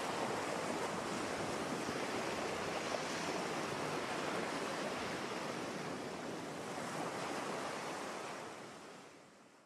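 Steady rushing noise, like surf or wind, fading out near the end.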